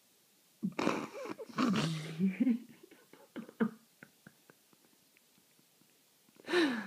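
A small terrier grumbling into his fluffy blanket: a rough, low growly grumble lasting about two seconds starting just under a second in, faint clicks of mouthing the fabric after it, and a shorter grumble near the end.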